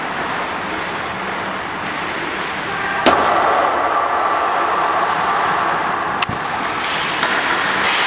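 Steady hiss of ice-rink noise, with two sharp cracks of hockey stick and puck, one about three seconds in and one about six seconds in.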